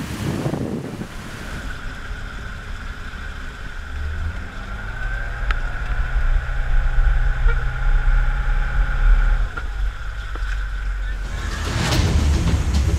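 A large engine running, with a steady high whine over a low rumble that swells about a third of the way in and eases near the end.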